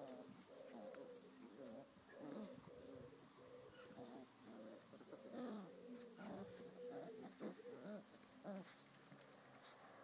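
Bouvier des Flandres puppies, about five and a half weeks old, whimpering and whining faintly: overlapping thin squeaky whines that bend up and down, with one long drawn-out whine through the middle.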